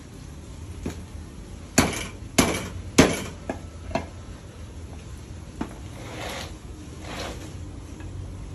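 Kitchenware knocking on a wooden table: three sharp knocks in quick succession about two seconds in, then a few lighter taps and two short rustles.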